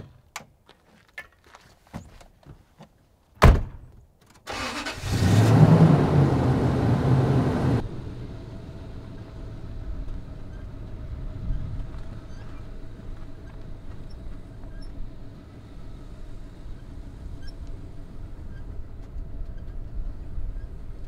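A few light clicks, then a pickup door shuts with a single loud thud about three and a half seconds in. A second later the Toyota Tundra's engine starts and runs loudly for about three seconds, then drops to a quieter, steady engine sound as the truck drives off.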